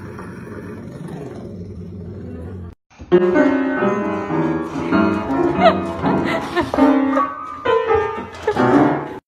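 A cat stepping along piano keys, sounding a jumble of separate, irregular notes. It follows a few seconds of a steady low sound.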